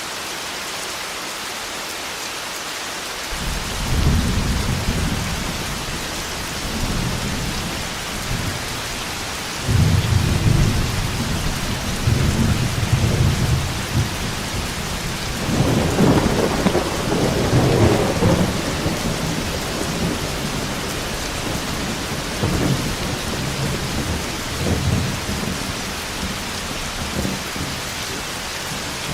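Steady heavy rain with rolling thunder: a rumble begins about three seconds in, a loud peal comes about ten seconds in, and the strongest, crackling clap follows a few seconds later before the rumbling trails off under the rain.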